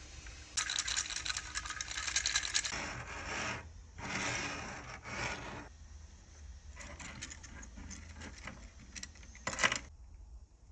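Hard 3D-printed plastic clattering and clicking in bursts, like the jointed segments of an articulated print-in-place toy being handled, with a short sharp rattle near the end.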